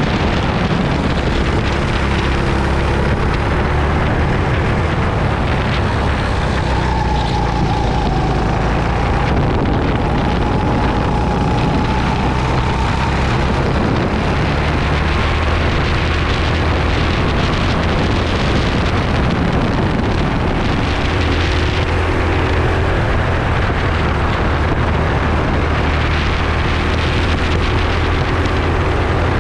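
Onboard sound of a racing go-kart's engine running steadily at race speed, with a constant rush of wind and road noise over it. A faint whine rises and falls in the middle.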